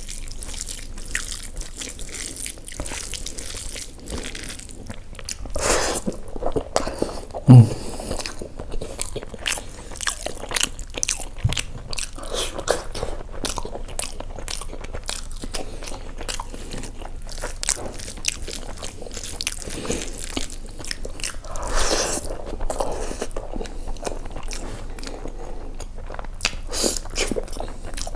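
Close-miked chewing of a mouthful of spiced basmati rice and mutton keema, eaten by hand: a run of short wet clicks and smacks from the mouth. There is one sharp low thump about seven and a half seconds in.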